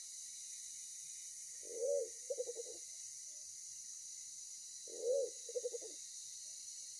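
A pigeon cooing twice, about three seconds apart: each call is a deep arched note followed by a few quick pulsed notes.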